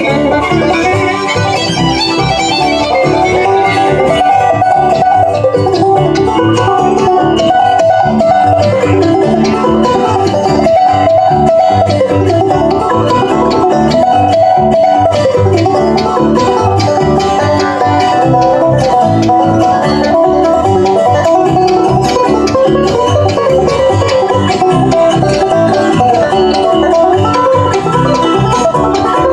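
Bluegrass band playing, with banjo to the fore over guitar.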